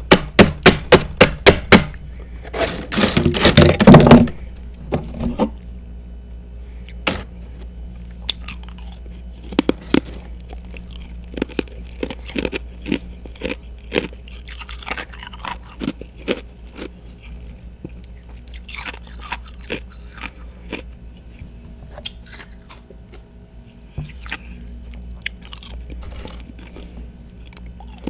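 A person biting and chewing ice close to the microphone. About eight sharp, loud crunches come in quick succession in the first two seconds, then a longer, dense crunch, then softer crunching chews scattered through the rest.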